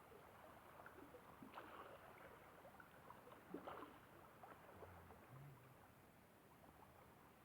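Near silence: faint lapping of small waves at a lakeshore, with a few soft splashes and clicks.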